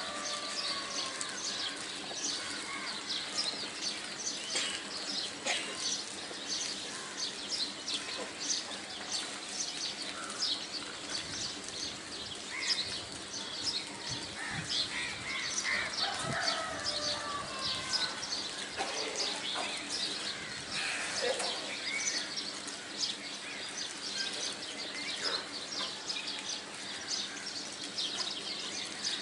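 Small birds chirping in the background: a dense, continuous stream of short high chirps, with a few lower gliding calls now and then.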